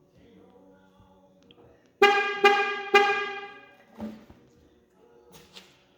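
Chevy Trax horn chirping three times in quick succession from the key-fob lock command, as the remote start is being tried.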